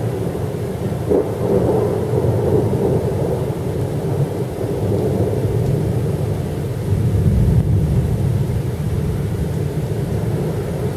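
Thunder rolling during a severe thunderstorm, with rain. A sharp crack comes about a second in, and the rumble swells again around seven seconds in.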